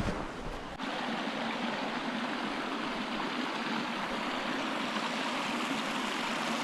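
Creek water running steadily over rocks. A low rumble under it stops abruptly about a second in.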